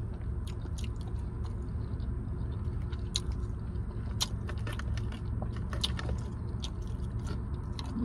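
Close-up chewing of food, with wet mouth clicks and smacks scattered throughout, over a steady low hum.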